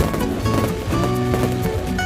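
Background music: held, overlapping notes over a steady low bass.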